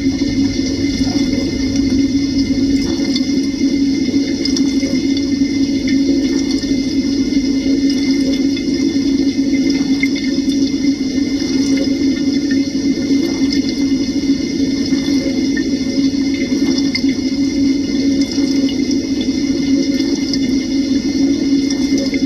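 IFB dishwasher running its quick-wash cycle, heard from inside the tub: spray-arm water splashing and drumming over the dishes on top of a steady hum from the circulation pump, which keeps recirculating the same wash water.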